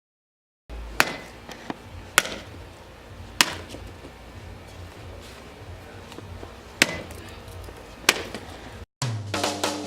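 A metal bat striking a watermelon: five sharp whacks, about a second apart at first and then after a longer gap, with a few smaller knocks between. Rock music with guitar comes in near the end.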